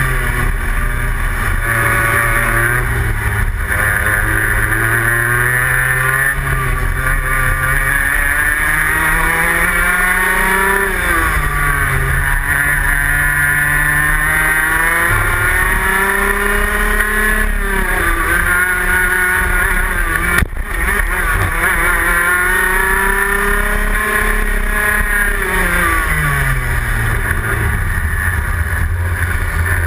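Rotax Max 125 cc two-stroke kart engine heard close up from on board, its pitch climbing steadily as the kart accelerates and falling away several times as the driver lifts for corners. There is a momentary dropout about two-thirds of the way through.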